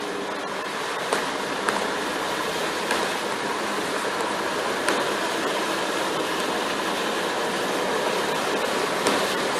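Steady rush of water in a flooded street, with a few light clicks scattered through it.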